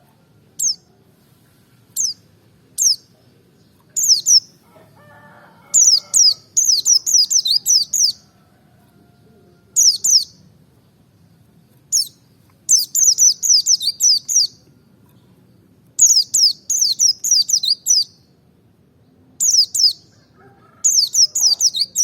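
White-eye (pleci) singing: a few single high chirps at first, then rapid twittering phrases of one to two seconds, repeated with short pauses.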